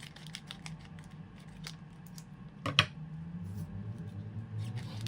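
Trading cards and booster packs handled by hand: a run of light clicks and rustles, with one louder snap about three seconds in. Under it runs a steady low hum from a motor outside.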